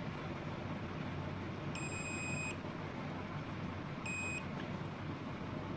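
Digital multimeter's continuity buzzer beeping twice as its probes touch circuit-board points: a high beep of under a second about two seconds in, then a shorter one about two seconds later. The beeps signal a low resistance between the probed points. A steady low hum runs underneath.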